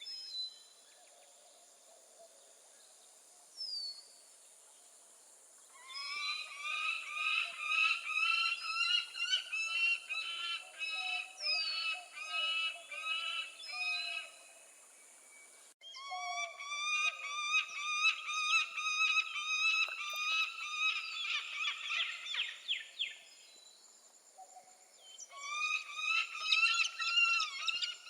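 Peregrine falcon calling in long runs of rapidly repeated calls, about two or three a second, with short pauses between the runs. The second run starts abruptly.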